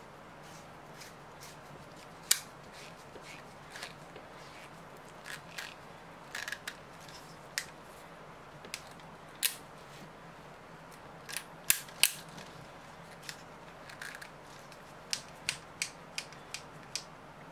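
Plastic quick-connect hose fittings and a pistol-grip spray nozzle being handled and snapped together: scattered sharp plastic clicks and snaps, the loudest about two seconds in and again near the middle, over a faint steady low hum.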